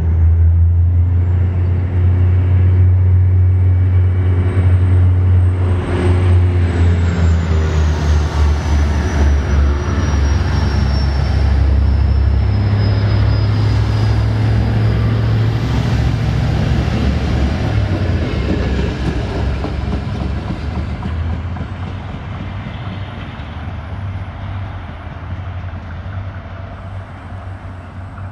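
A regional diesel multiple unit passes on the near track with a loud low engine drone, over rail and wheel noise. A thin high whine falls in pitch partway through. The drone fades and the sound dies away over the last several seconds as the train moves off.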